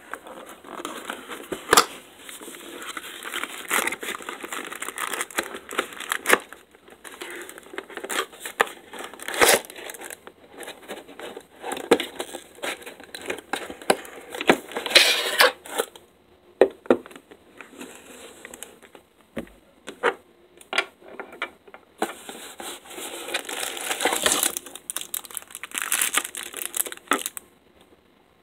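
Cardboard and plastic packaging being handled: a hard plastic case is slid out of a cardboard box and a plastic bag crinkles, with many short clicks and knocks.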